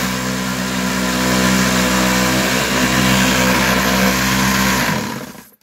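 Electric jitterbug sander bolted to a sifting bucket, running loud and steady with a humming buzz and the hiss and rattle of blasting sand shaking on the wire screen. About five seconds in it stops and quickly runs down to silence.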